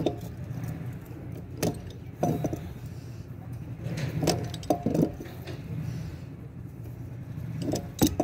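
Hands handling a CPVC pipe joint and a metal valve fitting, making scattered sharp clicks and knocks, the loudest near the end, over a steady low hum.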